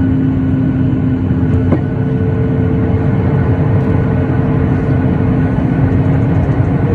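Cabin noise inside a Boeing 737-8: the steady low rumble of its jet engines and airflow, with a constant hum running through it. A light click sounds nearly two seconds in.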